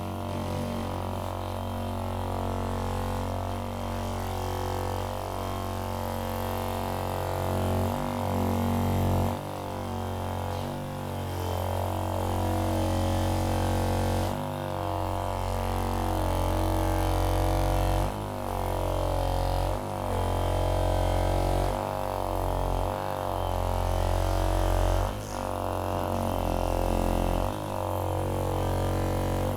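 Handheld percussive massage gun running, a steady low buzzing drone whose pitch sags and recovers as it is pressed against the body, with brief drops every few seconds.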